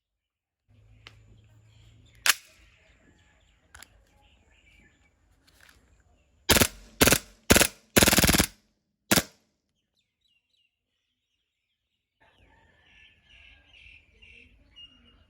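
Airsoft gun firing: a single sharp shot about two seconds in, then a string of loud short bursts of rapid fire around the middle. Birds chirp faintly in the background.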